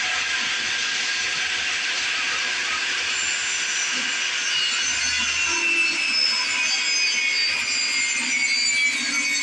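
A power tool working wood, running with a steady, unbroken noisy whir.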